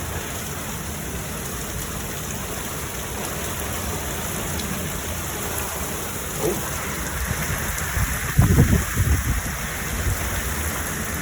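Heavy thunderstorm rain pouring steadily, growing heavier about two-thirds of the way in, with a loud low rumble, likely thunder, near the end.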